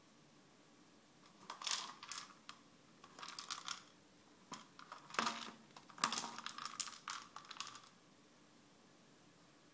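Hollow plastic treat ball with dry treats inside, rattling and clicking as a cat pushes it with its nose across a tiled floor. It comes in several bursts of rattling from about a second in until near the end.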